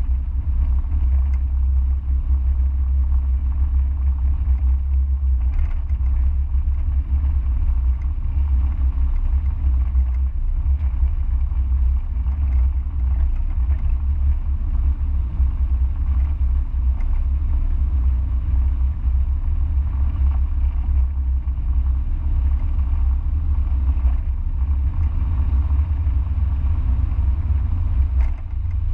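Mazda MX-5 driving at a steady pace, heard onboard: a low, steady rumble of its four-cylinder engine mixed with road noise.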